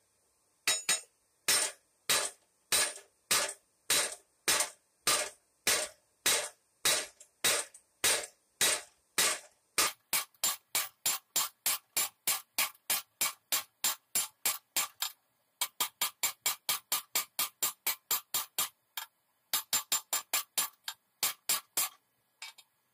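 Blacksmith's hammer striking hot steel on an anvil, each blow ringing briefly. Steady blows about two a second at first, then faster runs after about ten seconds, broken by two short pauses.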